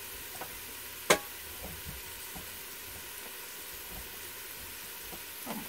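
Chopped onions, carrots, tomatoes and green peppers sautéing in oil in an Instant Pot's stainless steel inner pot, with a steady soft sizzle. One sharp click about a second in.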